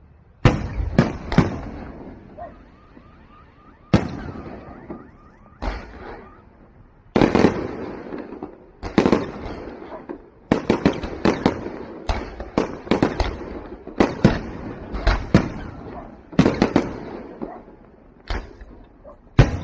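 Aerial firework shells bursting overhead: a string of sharp booms, each trailed by an echoing tail, coming faster and closer together in the second half.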